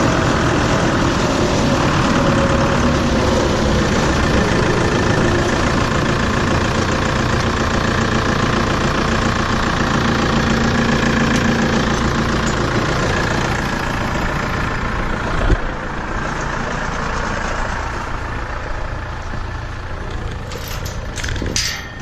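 Tractor engine running steadily, with one sharp knock about two-thirds of the way through, after which it runs a little quieter. A few light clicks come near the end.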